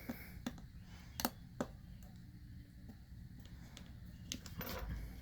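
A handful of small, sharp clicks and ticks, scattered and irregular, as a small screwdriver works at tight screws on a phone's metal back plate.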